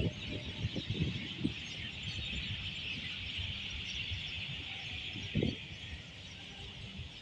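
A dense, steady chorus of many small birds chattering in the trees, over low rumbling of the camera being carried, with one low bump about five and a half seconds in.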